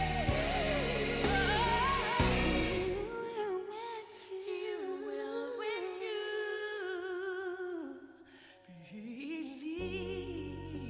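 Background music: a song with a solo singer. The bass and beat drop out about three seconds in for a softer sung passage and come back near the end.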